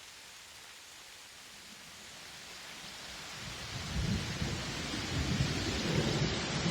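A steady rush of falling water fading in and growing louder, with a deep rumble building from about halfway.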